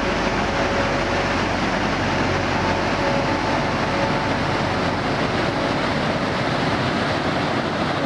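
River water rushing steadily over a low-head dam's spillway and churning into whitewater below.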